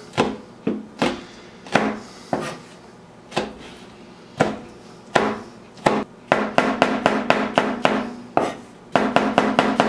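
Chef's knife chopping on a plastic cutting board, cutting red pepper and then mushrooms: single knocks about a second apart, then quick runs of rapid chopping at about five strokes a second after about six seconds.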